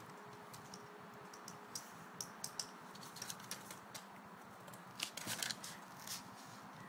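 Faint, scattered clicks and scrapes, with a denser cluster about five seconds in: a sulcata tortoise's claws and shell scraping on stone tiles as it hauls itself up over a step.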